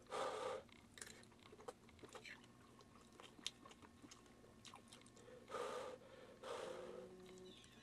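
A person chewing mouthfuls of scrambled eggs, with scattered small clicks. Short noisy rushes, about half a second each, come at the start and twice near the end.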